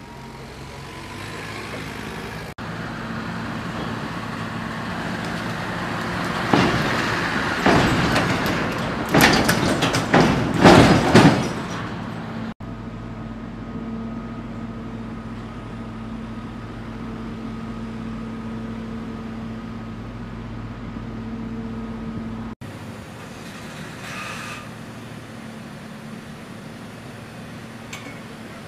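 Heavy military vehicle engines running, growing louder, with a run of loud metallic clanks and bangs about seven to eleven seconds in. This is followed by a steady engine hum and then a quieter drone.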